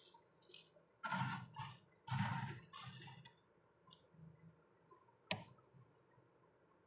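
Fingers scraping and scooping soft freezer frost: two brief scrapes about a second and two seconds in, a few fainter ones after, then a single sharp click a little after five seconds.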